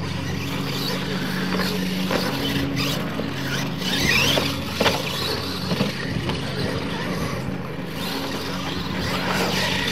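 Radio-controlled scale monster trucks racing on a dirt track: motors whining, rising in pitch about four seconds in, with several sharp knocks around the middle. A steady low hum runs underneath.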